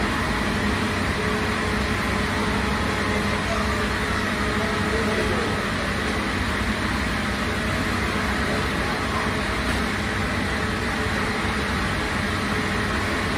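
Steady mechanical drone of bakery equipment: an even rushing noise with a low hum underneath, unchanging throughout.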